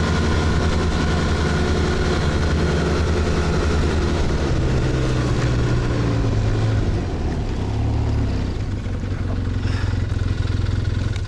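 A snow vehicle's engine running under way, its pitch shifting around the middle, then easing off and quieter for the last few seconds.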